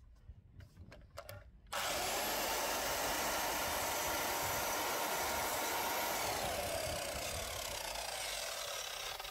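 Sliding compound mitre saw starting up about two seconds in and cutting through a strip of skirting board, running steadily. Its motor pitch drops about two-thirds of the way through. A few light handling clicks come before the saw starts.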